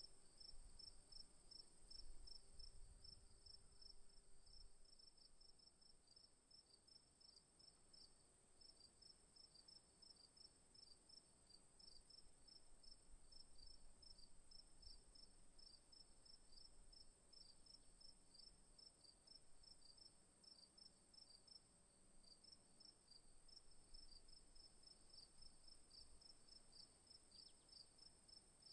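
Crickets chirping faintly at night: a steady high trill with a lower, evenly pulsed chirping several times a second. A faint low rumble sits underneath for the first few seconds.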